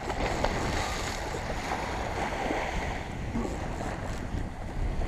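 Small waves washing over the sandy shallows, with wind rumbling on the microphone. A brief splash about half a second in as the hooked stingray thrashes at the surface.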